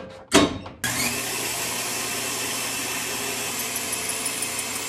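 A knock, then a bandsaw motor switches on about a second in, spinning up with a short rising whine and then running steadily. Near the end, the newly fitted wood-cutting blade begins cutting into half-inch Baltic birch plywood.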